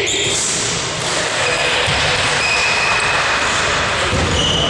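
Indoor basketball game play in a sports hall: a ball bouncing on the court floor and players moving, over a steady hall noise.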